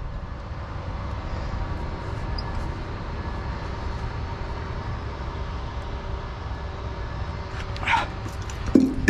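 A vehicle engine idling: a steady low rumble with a faint hum, unchanged throughout, and two short sharp sounds near the end.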